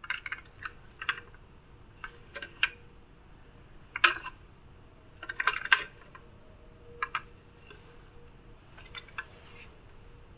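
Plastic toy fire engine being handled and turned over in the hands, giving off scattered clicks and light clacks of hard plastic, with the sharpest clacks about four and six seconds in.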